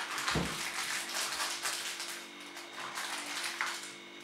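Shiny plastic toy wrappers crinkling and rustling in small irregular crackles as layers are peeled and handled, with a soft thump about half a second in.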